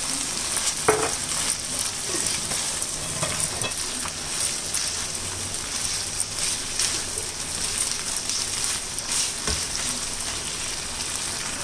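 Chicken mince sizzling steadily in a non-stick pan on high heat while a spatula stirs and scrapes through it in repeated strokes, the sauce cooking down nearly dry.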